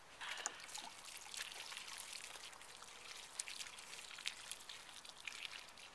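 Water pouring steadily from the spout of a plastic watering can onto soil and freshly planted flowers, starting just after the beginning.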